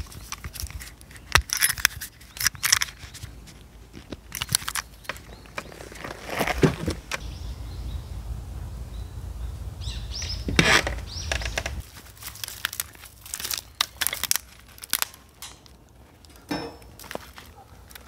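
Irregular clinks, clicks and rustles of hands handling camping gear: a small metal LED lantern being fitted together, and twigs being fed into a small folding wood stove. A low rumble runs under them and stops about two-thirds of the way through.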